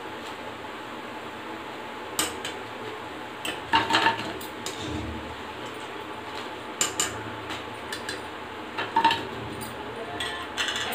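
Wire-mesh frying skimmer clinking and scraping against an iron kadhai as fried pakodis are lifted out of the oil: scattered metal clinks, the loudest cluster about four seconds in and more near seven and nine seconds and at the end.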